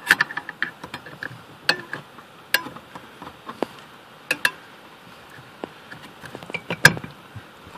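Small clicks and taps at irregular moments as fingers work a plastic clip on the brake pedal arm under a pickup's dash. One sharper click comes near the end.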